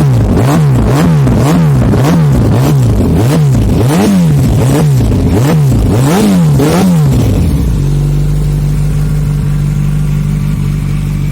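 Yamaha FZ1 inline-four sport bike through a Kimoto Superbike aftermarket exhaust (Two Brothers-style header), revved in quick throttle blips about twice a second, about a dozen in all. About eight seconds in it drops back to a steady idle.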